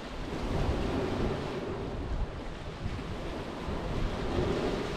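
Small lake waves breaking and washing over a pebble beach, with gusty wind buffeting the microphone.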